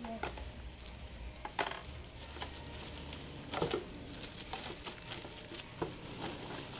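Clear plastic wrapping and a woven plastic sack crinkling and rustling as they are handled and pulled open, with scattered crackles. Two louder crackles come about one and a half and three and a half seconds in.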